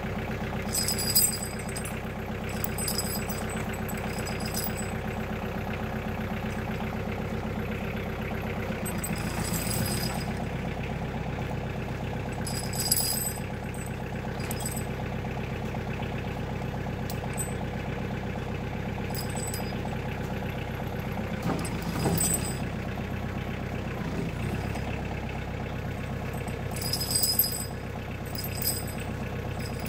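Kioti DK45 tractor's diesel engine idling steadily, with steel tire chains clinking and rattling now and then as they are pulled and straightened around the rear tire.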